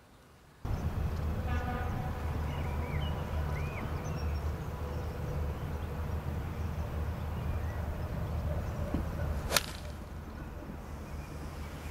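Golf iron striking the ball: one sharp crack near the end.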